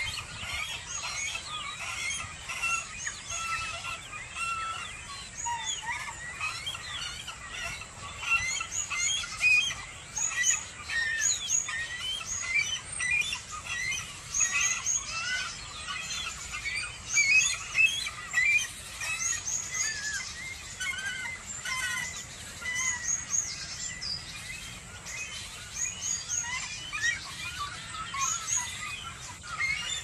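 A dense chorus of many small birds, with short, overlapping chirps and twitters.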